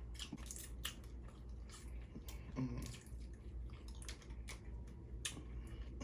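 Close-miked eating sounds: wet chewing and mouth smacks with a scatter of small sharp clicks, from a person eating Dungeness crab in butter sauce.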